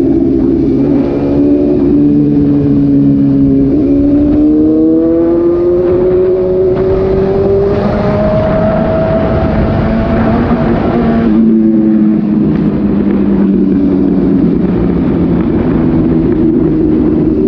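Suzuki GSX-S750's inline-four engine through an SC-Project slip-on exhaust with the dB killer removed, under way on the road. The revs climb steadily in pitch for several seconds as the bike accelerates, drop sharply about two-thirds of the way through, then run lower and steadier.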